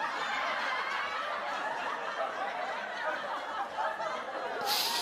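Sitcom laugh track: many people laughing and chuckling together, with a short hissing burst near the end.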